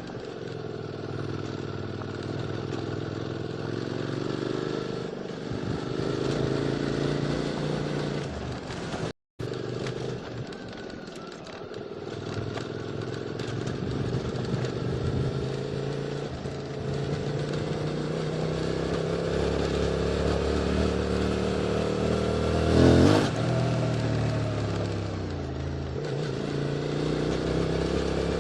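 QJ Motor SVT650X parallel-twin engine through an Arrow Racetech slip-on exhaust, under way, its note rising and falling with the throttle. The sound cuts out briefly about nine seconds in, and a short loud surge comes about 23 seconds in.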